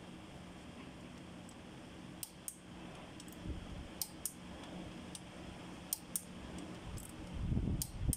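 Ratchet head of a digital torque wrench clicking in pairs every two seconds or so as it is worked on the connecting-rod cap bolts of a Cummins QST30 engine, with low handling rumble near the end.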